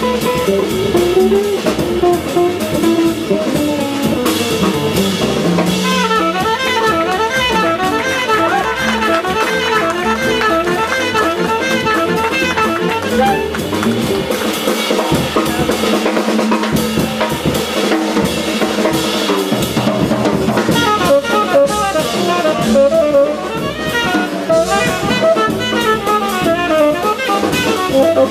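Live jazz band playing, the drum kit prominent under fast, winding melodic runs.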